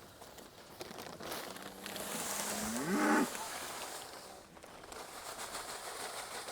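A Highland cow mooing once, a short call about three seconds in that rises and then drops in pitch.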